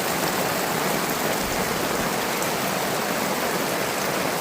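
Steady, even rushing of water, with a few faint scattered ticks.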